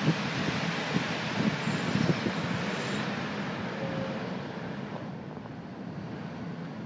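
Gusty wind buffeting the microphone over a steady rushing noise of heavy storm surf and traffic on a wet road; the gusts ease after about three seconds and the whole sound grows softer.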